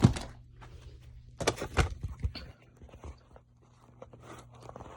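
Handling noise as a small light bulb is worked into its socket: a few sharp knocks and clicks, loudest right at the start and about one and a half to two seconds in, with scraping and rustling between them over a faint steady low hum.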